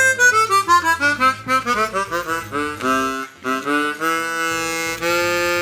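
Hohner New Super 64 chromatic harmonica being played: a quick descending run of short notes, then slower, longer held notes.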